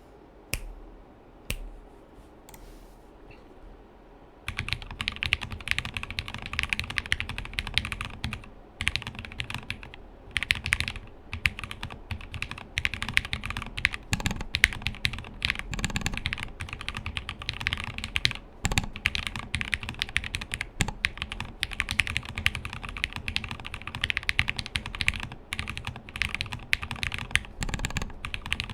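Mechanical keyboard with lubed Cherry-topped JWK linear switches in a plateless, burger-mounted CNC aluminum case, being typed on. A few single key presses come first, then steady typing from about four seconds in, with brief pauses.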